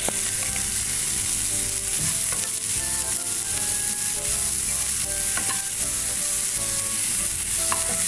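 Sliced onions frying in hot oil in a pan, sizzling steadily as a wooden spatula stirs them. A few sharp taps come from the spatula knocking the pan.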